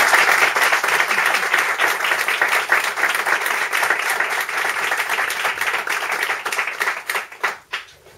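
Audience applauding: dense clapping that thins out near the end, with a few last separate claps before it stops.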